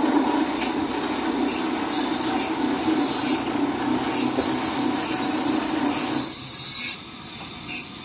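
Sawmill machinery running: a steady rolling, rumbling noise that cuts off about six seconds in, with a sharp high tick repeating just under once a second throughout.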